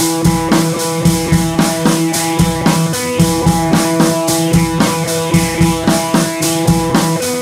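Music with a steady drum beat and held instrument notes.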